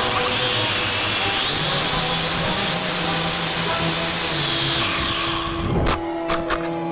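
Small drone's propellers whining, the pitch wandering up and down, then cutting out. About six seconds in comes one sharp crash and a few clattering knocks as the drone hits the ground, breaking a landing leg.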